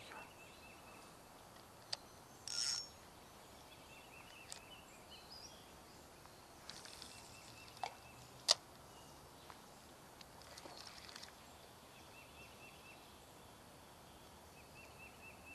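Quiet outdoor ambience with a bird's short high trills repeated every few seconds, broken by a few sharp clicks, the loudest about eight seconds in, and a couple of brief hissing rustles.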